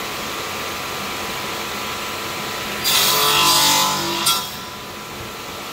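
Radial arm saw running with a steady hum, then its spinning blade is pulled through a wooden board: a loud cutting rasp starting about three seconds in and lasting about a second and a half, with a sharp peak as the cut finishes. The motor keeps running, a little quieter, after the cut.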